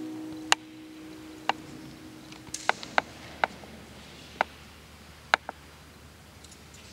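Scattered sharp clicks and light knocks, about nine in all at irregular intervals, over quiet room tone. The last held chord of the preceding music fades out in the first half second.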